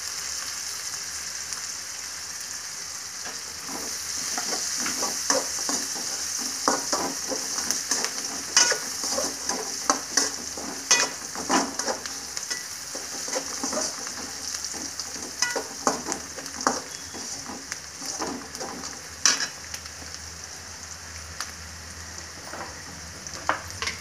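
Peanuts, onion, green chillies, roasted chana dal and fresh curry leaves frying in hot oil in a kadai: a steady sizzle, the tempering (oggarane) for poha, which grows louder about four seconds in. A spoon scrapes and knocks against the pan many times as the mixture is stirred.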